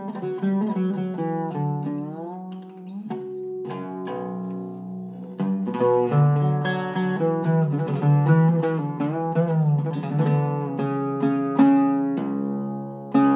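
Solo Iraqi-style oud with a cedar soundboard, played in plucked notes with slides between them early on. After a quieter stretch, the playing grows louder and busier from about five seconds in.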